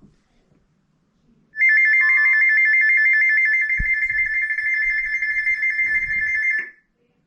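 Weather alert radio sounding its warning alarm: a loud, rapidly pulsing two-tone electronic beep that starts about a second and a half in and cuts off abruptly about five seconds later. It signals an incoming weather warning. A single low thump sounds midway.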